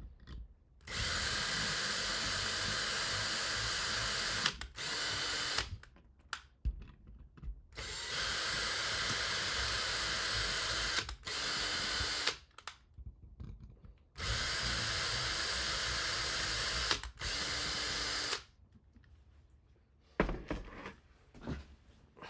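Power drill running in three spurts, each a run of about three seconds followed after a brief pause by a shorter run of about a second. Small clicks and handling knocks come between the spurts.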